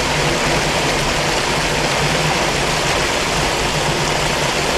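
Water pouring over a small spillway close by: a steady, unbroken rushing.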